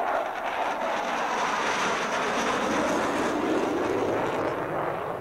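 Military jet fighter flying a display pass: loud, steady jet engine noise.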